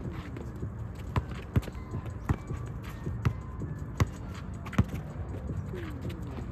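A basketball bouncing on a court: six sharp bounces at uneven gaps of about half a second to a second, over steady background noise.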